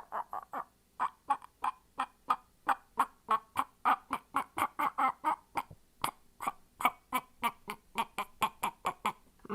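A person making a rapid string of short, clipped vocal noises into a microphone, about four a second, quicker near the start.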